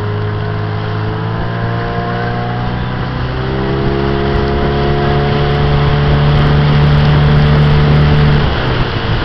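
Small motorboat engine running steadily under way. Its pitch rises a little about three seconds in, and it eases off near the end.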